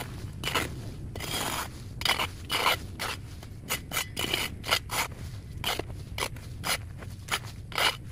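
Repeated scraping and cutting strokes of a hand tool working through overgrown vegetation, irregular at about two a second, a few strokes drawn out longer than the rest.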